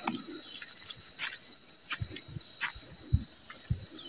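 Insects droning in one steady, high-pitched, unbroken chorus, with a few dull thuds of footsteps on the dirt path in the second half.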